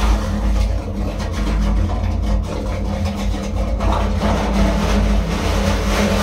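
Ship's machinery running with a steady low drone and a constant hum.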